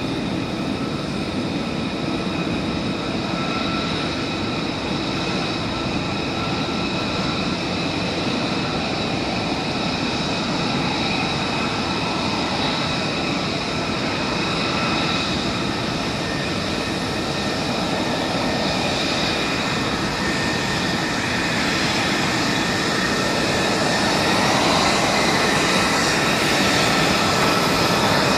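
Fighter jet engines running on the flight line: a steady, high turbine whine over a rushing noise, growing a little louder near the end as a jet taxis closer.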